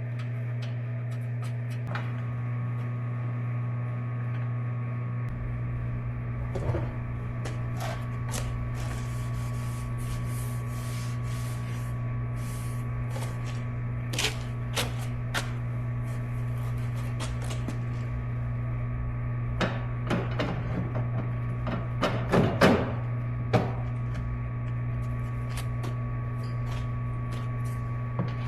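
A steady low hum with scattered knocks and clicks over it, and a cluster of louder knocks about 22 seconds in.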